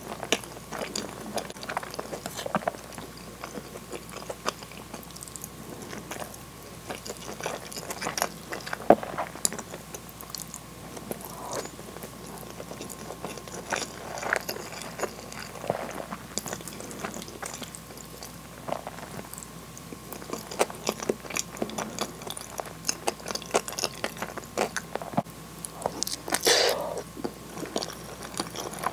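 Close-miked chewing of cheese-filled hamburg steak and white rice, full of small wet clicks, with a louder burst of mouth sound near the end.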